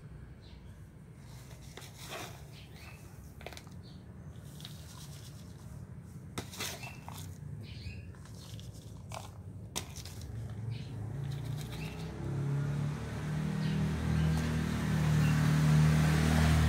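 Rustling and light knocks from plastic plant pots, potting soil and leafy cuttings being handled during potting. About twelve seconds in, a low engine hum starts and grows steadily louder, becoming the loudest sound near the end.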